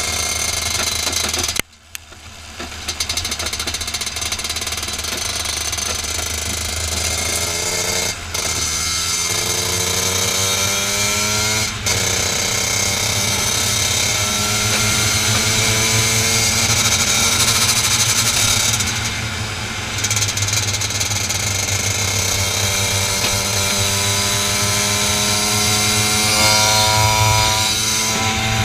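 Racing kart engine heard onboard at full throttle, its pitch climbing steadily as the kart accelerates, with a sudden drop in sound about two seconds in and short breaks near eight and twelve seconds before a long unbroken climb.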